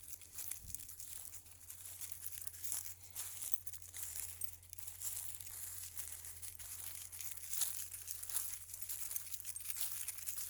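Footsteps crunching and rustling through dry leaves and brush, a steady run of irregular crackles.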